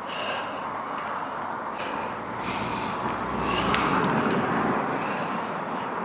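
A car passing the bicycle on the road, its tyre and engine noise swelling to loudest about three to four seconds in and then easing off, over steady wind noise.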